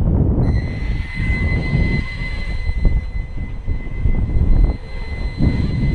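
Walkera QR Ladybird V2 micro quadcopter's motors and propellers spinning up about half a second in, then a steady high-pitched whine as it takes off and flies. Wind buffets the microphone with a heavy, gusty rumble throughout, the loudest sound.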